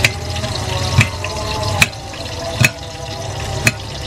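Knife cutting a piece of hard palm sugar over a ceramic plate: five sharp clicks about a second apart, each with a short ring, over a steady low hum.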